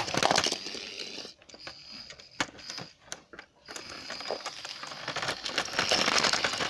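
Plastic model train cars being handled and pushed along a surface: a run of small clicks and rattles, quieter for a couple of seconds in the middle.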